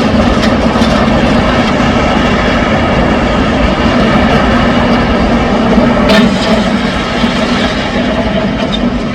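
Heavy machinery running loudly and steadily, a low engine hum with a few sharp knocks, about six seconds in and at the end, as material is worked.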